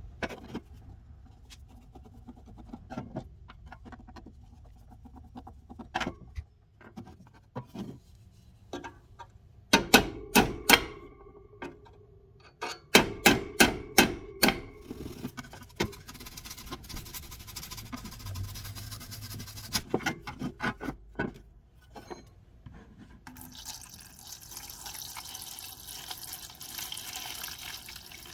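Sharp clicks and knocks of handling, in clusters about ten and thirteen seconds in, then liquid pouring steadily into a container to fill a rust bath for the saw, the pouring getting louder and brighter over the last few seconds.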